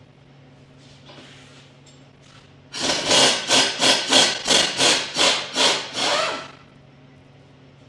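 A hand cutting tool worked back and forth, about a dozen quick rasping strokes over nearly four seconds, starting about three seconds in.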